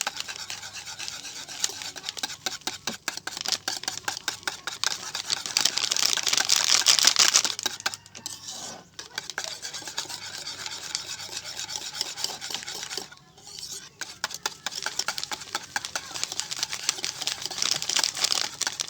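Cream, condensed milk and Milo powder being mixed by hand in a bowl: a utensil scraping and clicking against the bowl in quick continuous strokes, pausing briefly twice.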